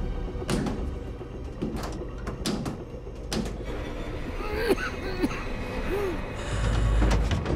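Horror film sound mix: several sharp knocks in the first few seconds, then three short arching tones and a deep low rumble that swells near the end.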